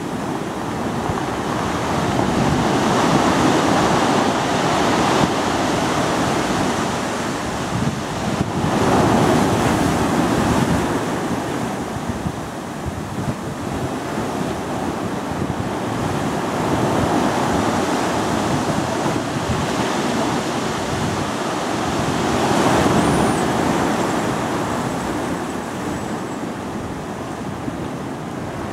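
Ocean surf breaking and washing in over rocks and sand, a steady rushing that swells and ebbs with each incoming wave about every six to eight seconds.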